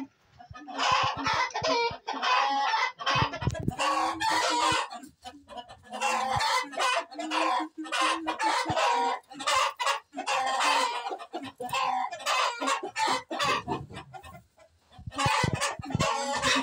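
Roosters crowing, one long crow after another with only short gaps between them.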